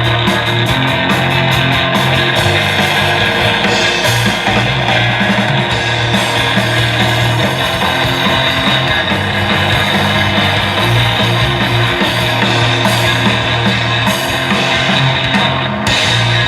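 Rock band playing live: electric guitar, bass and drum kit, loud and steady throughout.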